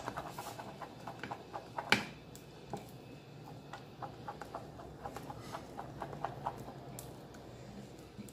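Wooden spoon stirring a thick glue-and-cornstarch paste in a small metal saucepan, with irregular light clicks and taps of the spoon against the pan and one sharper knock about two seconds in.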